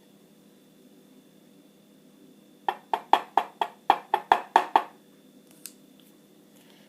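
A rapid run of about ten sharp metallic taps in two seconds, a lock body being knocked against a hard surface to shake the pin springs out of their chambers.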